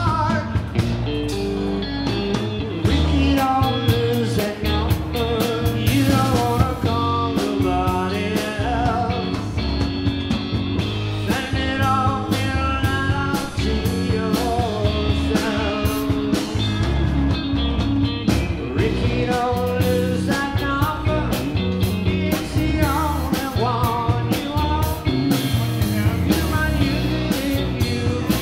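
Live rock band playing a song through PA speakers, with guitar over a steady drum-kit beat.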